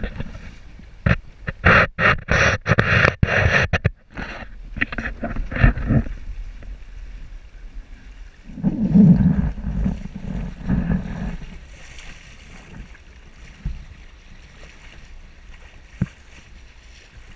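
Water slapping and splashing against a GP14 sailing dinghy's hull: a quick run of sharp splashes over the first few seconds, then a longer rush of water about halfway through, easing off toward the end.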